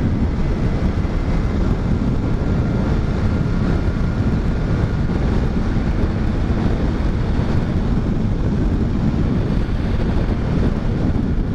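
Steady wind rush on the microphone of a Kawasaki ZX-6R sport bike at road speed, with the bike's inline-four engine running evenly underneath.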